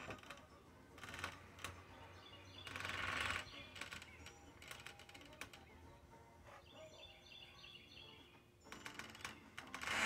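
Faint outdoor background with scattered clicks from a phone being handled, a brief rush of noise about three seconds in, and a few bird chirps in the second half.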